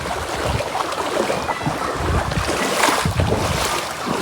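Floodwater rushing steadily, with gusts of wind buffeting the microphone now and then.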